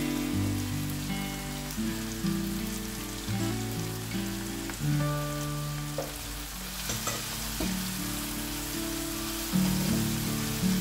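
Onion, tomato and hot peppers sizzling in oil in a non-stick frying pan. About two-thirds of the way in, a spatula scrapes and stirs the pan and the sizzle grows brighter. Soft background music plays throughout.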